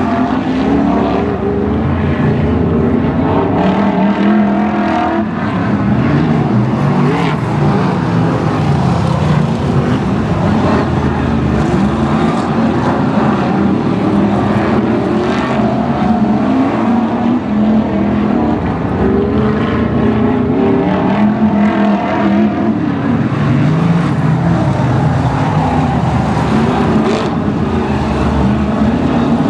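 Several BriSCA F1 stock cars' V8 engines running hard as they lap the track, a loud, continuous mix of engines whose pitch rises and falls as the cars accelerate and pass.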